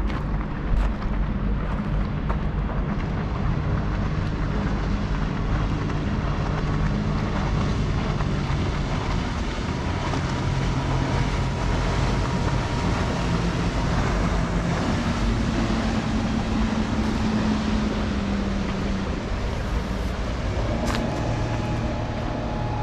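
Motor engine noise: a steady drone whose low pitch shifts up and down.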